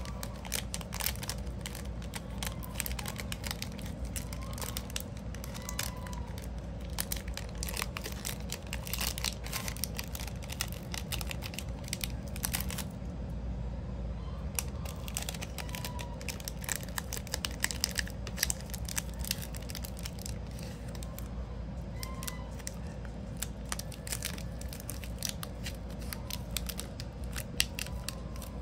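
Clear plastic packing bag crinkling and crackling in the hands as a round soap bar is slid into it and the bag is handled. A few faint short calls from a pet goose sound in the background.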